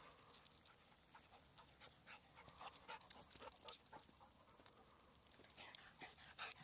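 Faint, scattered light clicks and rustles of golden retrievers' paws running over bare rock and dry grass, growing busier near the end as a dog comes closer.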